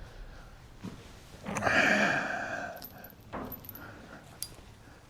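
A goat bleats once, a call of about a second, with a few light knocks and brief metallic jingles around it.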